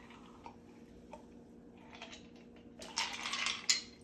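Glass tumblers with ice cubes being drunk from: a few faint clicks, then about three seconds in a short rattle and clink of ice against glass as the glasses are lowered.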